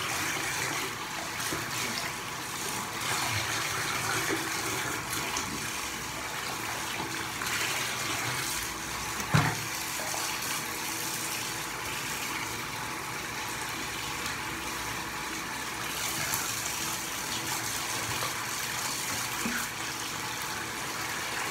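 Water running from a bathtub spout into a partly filled tub, splashing as a puppy is rinsed under it. A single short thump about nine seconds in.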